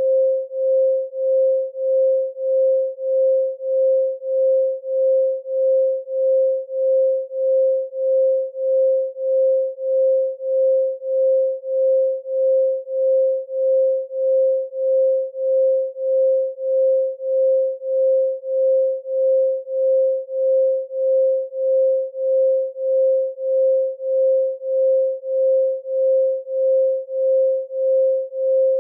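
A pure 528 Hz sine tone pulsing smoothly on and off, about three pulses every two seconds.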